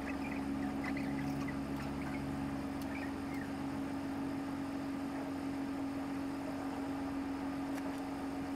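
Steady hum of a ferry's machinery heard inside a passenger lounge, a constant low drone under a wash of noise. A few faint, short high chirps in the first few seconds.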